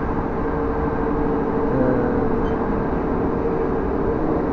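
Passenger train running at speed, heard from inside the carriage: a steady rumble of wheels on the rails with a steady hum.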